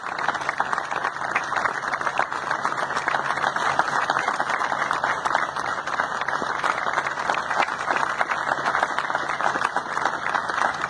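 A crowd applauding: many people clapping at once, steady and dense throughout.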